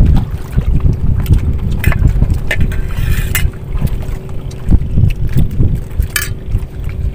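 Wind buffeting the microphone with a faint steady hum underneath, and a few short scrapes of metal spoons against metal bowls.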